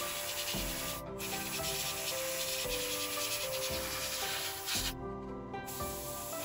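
Airbrush spraying black paint with a steady hiss, cutting out briefly about a second in and again for about half a second near the end, over background music.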